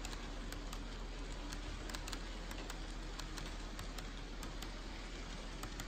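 KATO N-gauge model of the E001 Train Suite Shiki-shima rolling past, its wheels ticking irregularly over the rail joints of the track, over a steady hiss. A faint hum fades out about three seconds in.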